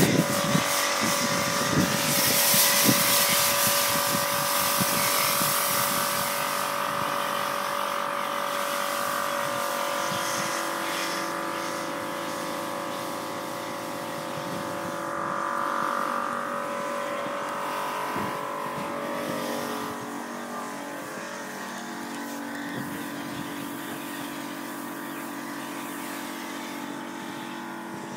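A pressure-washer snow foam lance sprays foam with a loud hiss for about the first seven seconds. Under it a steady motor hum keeps running the whole time.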